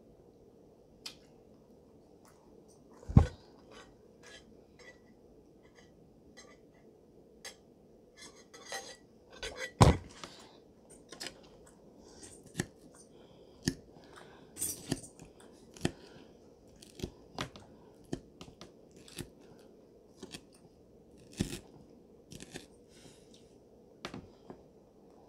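Close-miked eating sounds: mouth noises and chewing, with a metal fork clicking and scraping on a plate as it cuts into a croque-monsieur sandwich. Two louder knocks come about three seconds and about ten seconds in.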